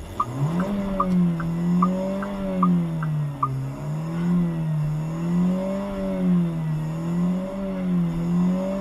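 A car engine roaring at high revs after a crash, racing on its own without let-up, which is taken for sudden unintended acceleration. It climbs steeply at the start, then holds high, surging and sagging in pitch every second or so. A light ticking, about two and a half ticks a second, runs under it and stops about three and a half seconds in.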